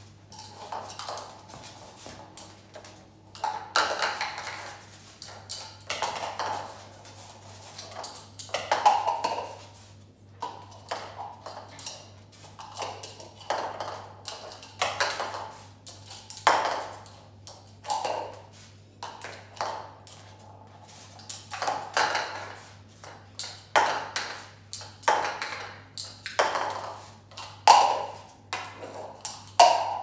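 Hard plastic toy cups clattering and pinging on a tile floor as a cockatoo picks them up, drops them and knocks them over, in irregular clusters of knocks every second or two.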